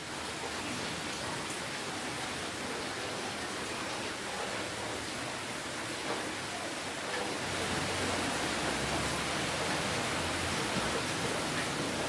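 Steady rainfall, an even hiss with faint scattered drop ticks. It grows a little louder about seven seconds in, with a low rumble underneath.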